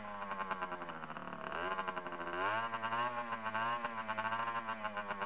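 Small dirt bike engine running at low revs, its pitch rising about one and a half seconds in and then wavering up and down as the throttle is worked.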